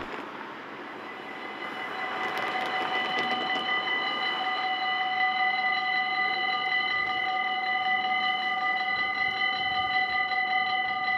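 Warning bell of a Dutch level crossing (AHOB) ringing rapidly and steadily. It starts about two seconds in, as the crossing's red lights begin to flash.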